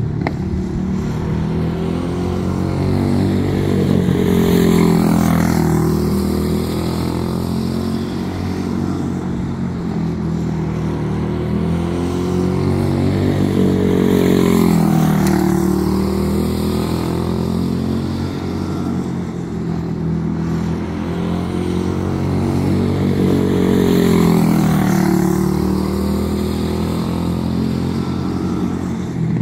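Small single-cylinder four-stroke racing engine, a Briggs & Stratton Animal, running laps of a small dirt oval. The note runs without a break, and about every ten seconds it swells and bends in pitch as the car passes close and powers through the turn.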